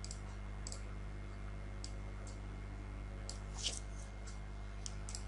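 Scattered clicks of a computer mouse and keyboard while an on-screen selection is made, over a steady low electrical hum. The loudest click comes a little before four seconds in.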